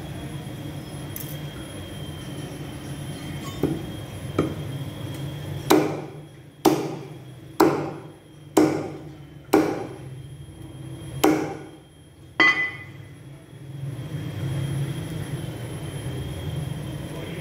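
Heavy meat cleaver chopping mutton on a wooden log chopping block: two light knocks, then about seven hard strikes roughly a second apart.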